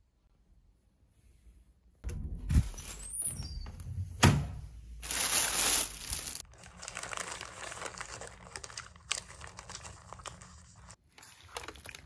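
Rustling, crinkling handling noise with a few sharp knocks, starting after about two seconds of near silence; a louder tearing hiss comes around the middle.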